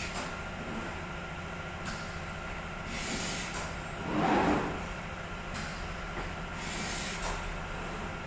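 CNC glass cutting table running, with a steady hum from its drive motors as it cuts. About four seconds in there is a louder noisy swell that lasts about half a second.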